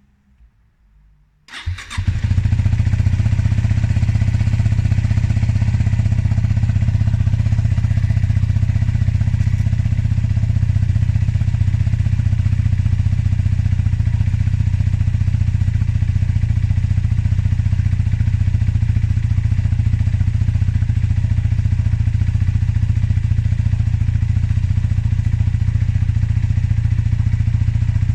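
Stock Yamaha WR250X single-cylinder four-stroke engine starting up about a second and a half in, then idling steadily through its stock exhaust.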